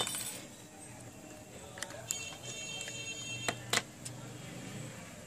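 Small sharp clicks and taps of an opening tool working against the parts of an opened iPhone 4, a handful in all, the loudest two coming close together about three and a half seconds in, over a low steady hum.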